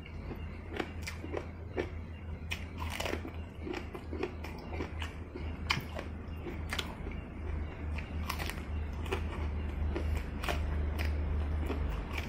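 Close-miked chewing and biting of crunchy food, with irregular crisp crunches several times a second over a steady low hum.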